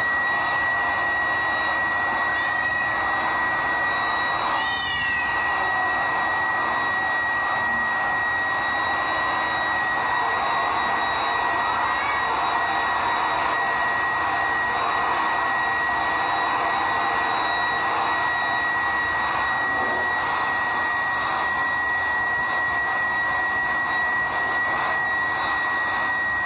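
Handheld hair dryer running steadily with a constant high whine as it blows on a wet long-haired cat. The cat meows briefly two or three times in the first few seconds.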